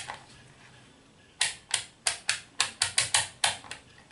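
Rotary selector dial of a DT830D digital multimeter clicking through its detents as it is turned: a quiet start, then about ten sharp clicks at roughly four a second from about a second and a half in. The dial is being moved round to the 20 V DC range.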